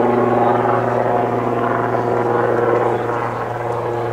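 Steady engine drone: a low hum with several steady tones above it, slightly louder at first and easing off toward the end.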